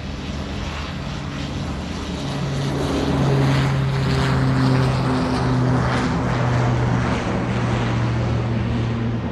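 Engines of a formation of fighter jets flying over: a broad rushing noise over a low steady hum, growing louder about two to three seconds in and easing slightly near the end.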